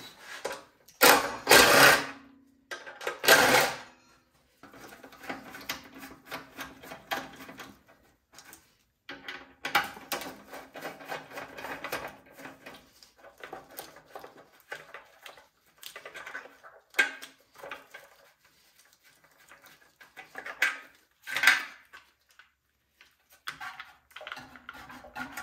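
Tools working on snow blower bolts and parts: clicks, rattles and a run of rapid mechanical ticking, with two loud rushes of noise near the start.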